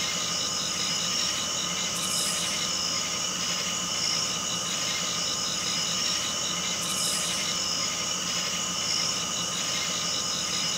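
Looping electronic drone: several steady high tones over a hiss, one of them pulsing quickly, with a brief bright swell of hiss about every five seconds.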